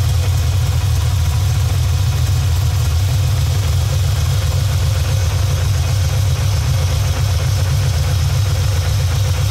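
Cammed engine idling steadily on a new Summit Racing four-barrel carburetor while its idle mixture screws are being set by quarter turns for the highest vacuum and a smoother idle.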